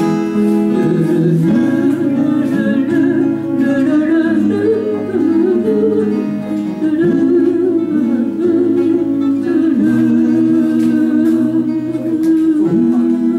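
Two acoustic guitars strumming and picking the song's closing instrumental, with a wordless sung or hummed line over them.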